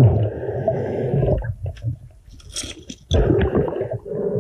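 Muffled underwater crunching and scraping as a gloved hand digs an object out of the gravelly, silty riverbed, heard through a waterproof camera housing. It comes in two stretches of about a second each, with a quieter gap between them.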